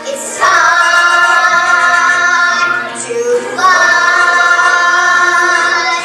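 Children singing a musical-theatre number, holding two long notes, the second beginning about three and a half seconds in.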